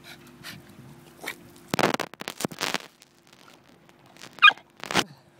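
A small dog barking in short, sharp barks: a cluster of them about two seconds in, then a louder, higher yap near the end followed by one more bark.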